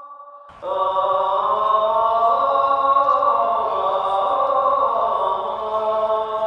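Background music of sustained choir-like voices holding long chords. A new chord comes in loudly about half a second in, and one voice slowly slides down in pitch.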